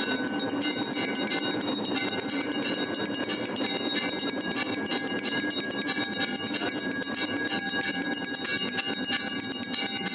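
Temple bells ringing on and on without a break, their many high tones holding steady over a dense, even din.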